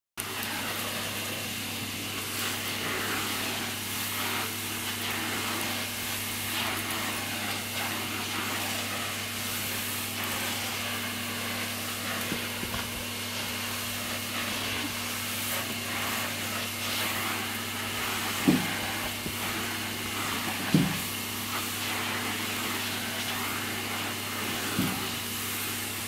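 Vacuum cleaner running steadily, a constant hum under the hiss of its suction through a wand and crevice nozzle. In the last third, a husky puppy gives three short yaps over it.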